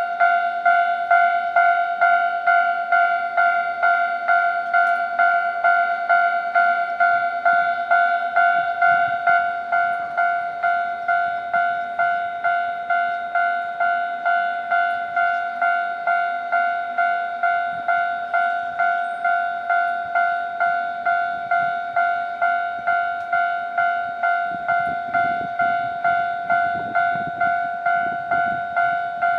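Japanese railway level-crossing alarm bell ringing, one electronic bell tone repeated evenly about twice a second. A low rumble builds under it near the end.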